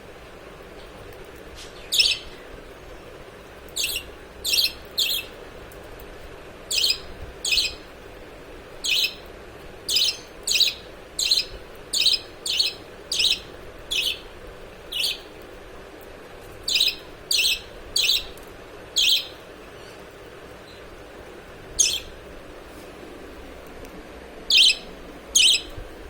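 Parrot chick giving short, sharp, high chirps, one or two a second in irregular runs with pauses, typical of a chick begging to be hand-fed.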